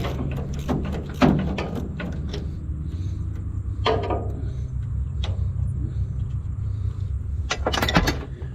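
Scattered metallic clicks and knocks from hand tools and parts being handled on the combine, a cluster of them near the end, over a steady low mechanical hum.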